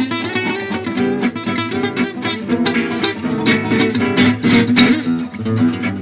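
Background music: a guitar playing a quick run of plucked notes.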